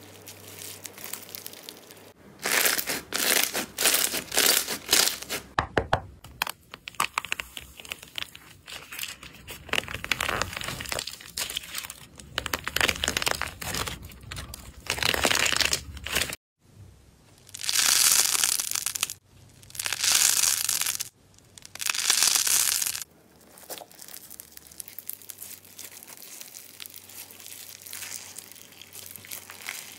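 Hands squeezing slime. About two seconds in, a dried, cracked crust on blue slime or clay starts crackling densely as it is pressed and breaks up. After a sudden break, three loud bursts of crinkling follow, then softer squishing of bead-filled slime near the end.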